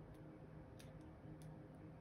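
Near silence with a few faint, sparse clicks of a small screwdriver working a tiny screw into a metal pistol part, about five light ticks over two seconds.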